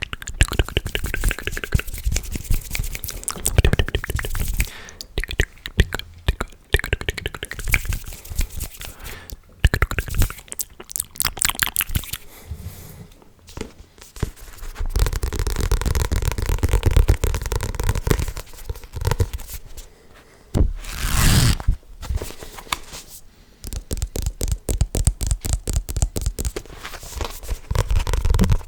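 Close-miked ASMR triggers: crackling, scraping and rubbing right at the microphone, broken by rapid runs of clicks, with a deep rumbling rub in the middle stretch and a short loud rushing hiss a little past two-thirds through.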